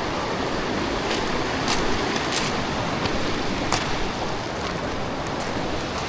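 Rushing mountain river water, a steady full noise, with a few brief sharp sounds rising over it in the first four seconds.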